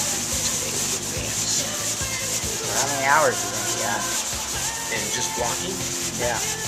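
Continuous hand rubbing on the sheet-metal body of a 1964 Chevy van at the door pillar, a steady scratchy hiss.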